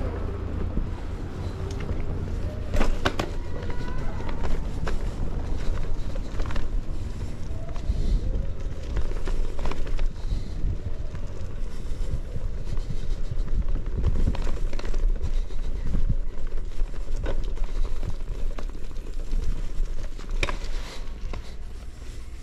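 Bicycle ride over rough pavement: a steady low rumble with scattered clicks and rattles, easing off near the end.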